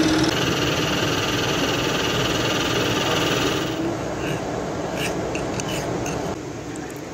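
End mill on a milling machine cutting an aluminium block: a steady high-pitched cutting whine that stops at about three and a half seconds. After that, a few quieter rasping strokes of a hand file on a metal part held in a bench vise.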